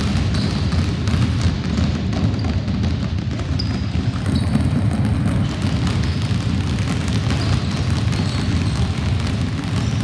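Many basketballs dribbled at once on a hardwood gym floor, most players bouncing two balls each: a dense, steady patter of overlapping bounces, with a few brief high squeaks.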